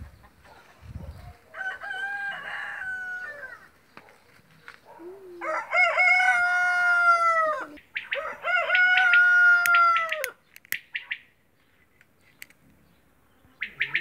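A rooster crowing three times, each crow about two seconds long and dropping in pitch at the end. The first crow is fainter; the second and third are loud and come close together.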